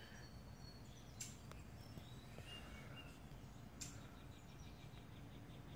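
Quiet outdoor ambience with a few faint, short bird chirps and a couple of soft handling clicks.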